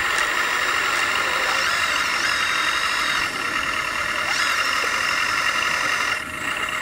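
1/14-scale RC construction machines and trucks running: a steady, high-pitched mechanical whine with short rising-and-falling glides in pitch, dipping briefly near the end.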